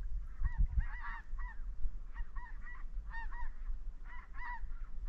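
A flock of about 30 snow geese calling in flight: many short honks scattered through the whole stretch, some overlapping.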